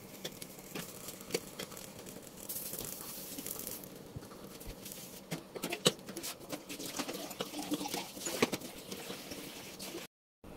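Eggplant skins charring directly over open gas-burner flames, crackling and popping in small irregular clicks over a steady hiss. The sound cuts out for a moment near the end.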